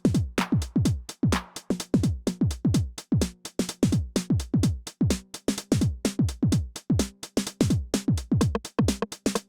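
Behringer RD-9 drum machine playing a continuous techno pattern: deep kick drums that drop quickly in pitch, under fast, busy hi-hats.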